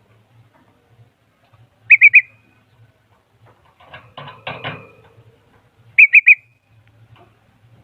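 Bulbul song: two loud bursts of three quick whistled notes, about four seconds apart, with a softer harsh rustling chatter between them.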